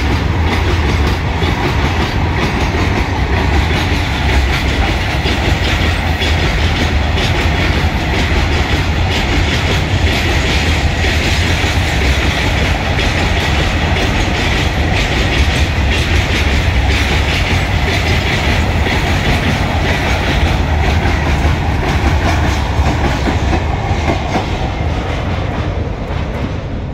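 Freight wagons of a long goods train rolling past close by: a steady low rumble with the clickety-clack of wheels over rail joints. The high end and loudness begin to fall away near the end as the tail of the train passes.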